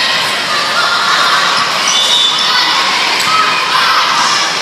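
Volleyball gym sounds: the ball struck at the net, with players and spectators calling out and cheering, echoing in a large hall.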